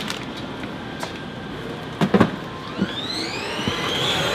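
Electric motor of a children's ride-on toy car whining as it speeds up, rising in pitch through the second half and then levelling off. A few knocks come before it, the loudest a pair of thumps a little past the middle.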